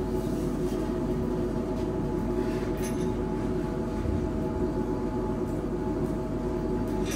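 Steady low mechanical rumble with a constant hum of several tones.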